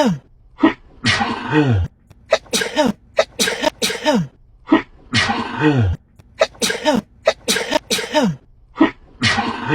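A woman sneezing uncontrollably in a rapid string of sharp sneezes, some ending in a voiced tail that falls in pitch. The same run of sneezes repeats about every four seconds as an edited loop.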